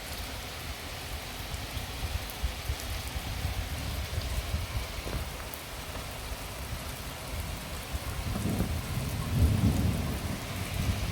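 Steady rain falling, with a low thunder rumble rolling in about eight seconds in and peaking shortly after.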